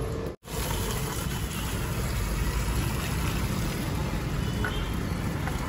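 A steady low rumbling noise, cut off by a brief dropout about half a second in.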